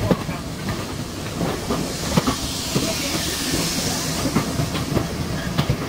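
Steam tank locomotive and its coaches passing close by on the adjacent track. Steam hisses, strongest from about two to five seconds in, and the wheels click and clank over the rail joints throughout.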